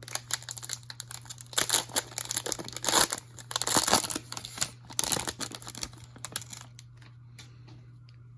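Plastic wrapper of a football trading card pack being torn open and crinkled by hand, densest for the first several seconds and then thinning to a few scattered crackles.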